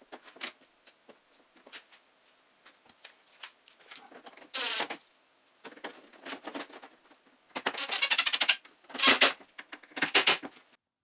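Tool and hardware handling inside a truck door as a power door lock actuator is fastened in place: scattered clicks and metal rattles, a short burst about halfway through, and a quick run of rapid, evenly spaced clicks near the end.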